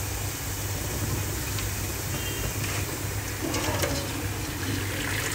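Parboiled rice and hot cooking water being scooped out of a large pot with a plastic bowl and poured into a strainer to drain, over a steady low hum.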